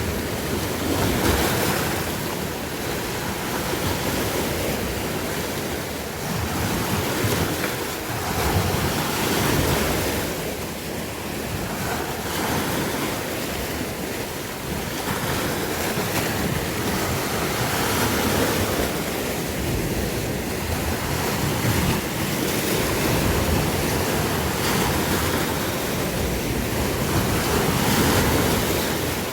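Sea waves breaking and washing in, a continuous rush of surf that swells and eases every few seconds, with wind buffeting the microphone.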